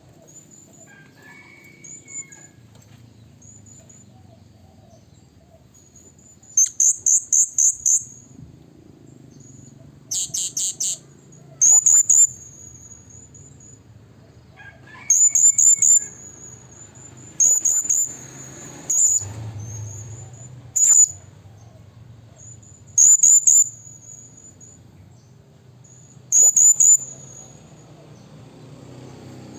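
Blue-crowned hanging parrot (serindit) calling as a lure bird to draw wild rivals: repeated bursts of shrill, very high squeaky notes, each burst a quick run of several notes, coming every two seconds or so, with softer single high chirps in between.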